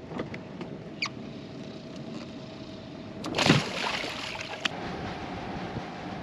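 Water sloshing along the hull of a sailboat under way, with an inflatable dinghy alongside, over a faint steady motor hum. About three and a half seconds in comes a louder rush of water.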